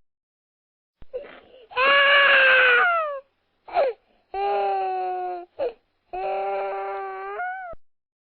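Baby crying: after about a second of quiet, three long wails with short catches of breath between them. The first wail is the loudest and slides down in pitch at its end.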